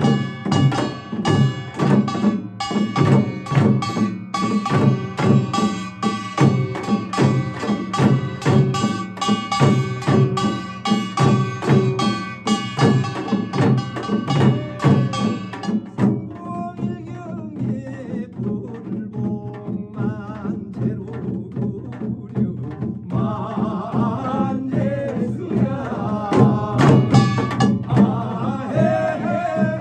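Korean pungmul percussion: barrel drums (buk), an hourglass drum (janggu) and a small brass hand gong (kkwaenggwari) play a fast, dense rhythm, with the gong ringing over the drum strokes. About halfway through, the drumming thins out and a man's voice starts singing the bina-ri blessing chant over lighter drumming.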